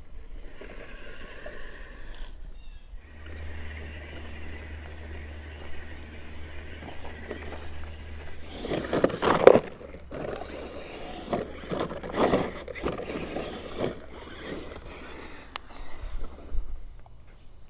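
Redcat Everest 10 RC rock crawler scraping and grinding over rock, in several rough bursts; the loudest comes about nine and a half seconds in and another around twelve seconds, over a steady low hum in the first half.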